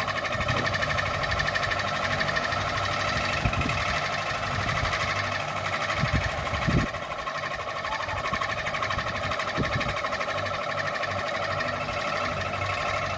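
Ceiling fan running with a steady whine and a rapid even flutter. A few low thumps come through, the strongest a little past halfway.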